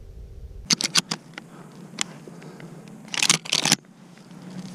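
Close handling noise: sharp clicks and crackly rustles from a shotgun and camera being moved about in dry grass. A cluster comes about a second in, and a louder rustling burst comes near three and a half seconds. Before that, a low wind rumble on the microphone cuts off abruptly.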